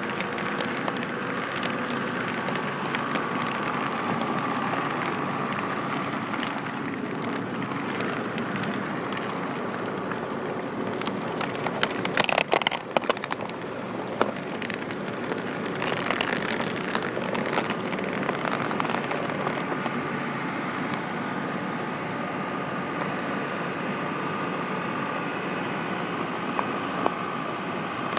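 Engine of a construction machine running steadily, with a short burst of sharp clattering knocks about twelve seconds in.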